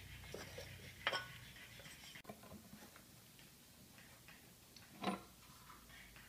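Faint clicks and light knocks of ceramic subway tiles being handled and set in place, a short clack about a second in and a louder one about five seconds in.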